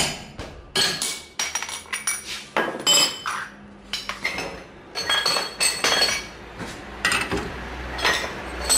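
Metal hand tools and parts clinking and knocking, a string of separate sharp metal strikes, some ringing briefly, while work starts on removing a worn rear wheel bearing.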